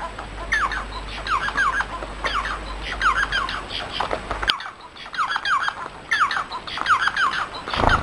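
Bengalese finch (society finch) chirping: quick runs of short, downward-sweeping notes in two bursts, with a brief pause about halfway through.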